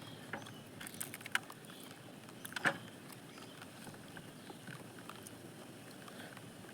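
Quiet eating sounds: a few short crisp clicks and crunches, the loudest about two and a half seconds in, over a faint hiss.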